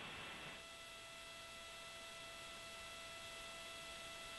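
Faint steady hiss and electronic hum of a broadcast audio feed, with several thin steady tones; a lower tone comes in about half a second in.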